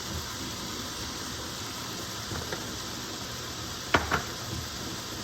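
Butter and chopped vegetables sautéing in a pan, a steady sizzle, with two sharp taps close together about four seconds in.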